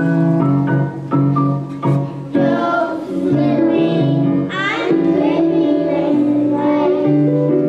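Young children singing a song together over an instrumental accompaniment.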